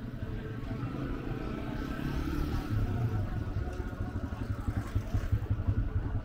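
A motorcycle engine passing, growing louder about two to three seconds in, over a rough low rumble of street noise.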